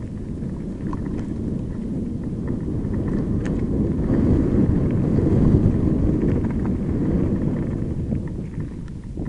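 Mountain bike rolling down a loose gravel trail, heard through a mounted action camera: a low rumble of tyres on stones and wind on the microphone. It swells to its loudest about halfway through and eases near the end, with a few sharp ticks.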